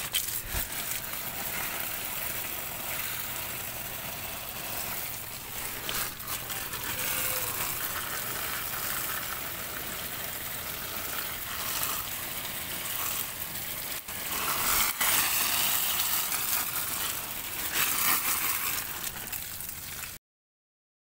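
Water from a hose spraying and splattering onto plastic-wrapped oyster mushroom baglogs: a steady spraying noise that swells louder a couple of times, then stops abruptly near the end. The baglogs are being watered to soften their hardened surface and cool the house to bring on fruiting.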